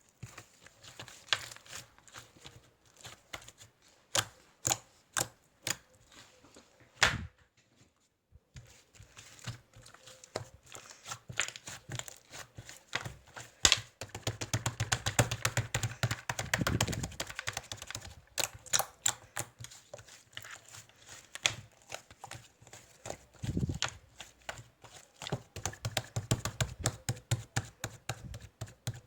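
Fast, irregular clicking and tapping like typing, thickest and quickest about halfway through, with a few duller knocks among the clicks.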